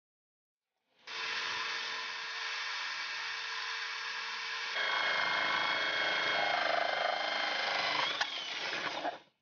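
A power tool running with a steady whine, starting suddenly. About halfway it gets louder and higher-pitched, and a sharp click comes near the end before it cuts off.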